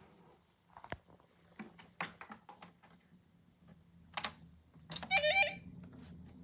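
A series of sharp clicks and knocks, then a brief warbling electronic-sounding chirp just after five seconds, the loudest sound here. A low steady hum comes in about halfway through.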